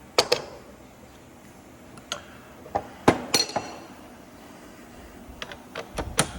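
Metal hand tools clinking and knocking: a string of sharp metallic clicks, one a little after three seconds in ringing briefly.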